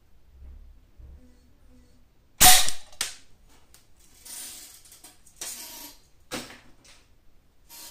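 A multi-pump pneumatic air rifle fires a single shot about two and a half seconds in, heard as one sharp crack, followed half a second later by a smaller click. Several brief rustling noises follow.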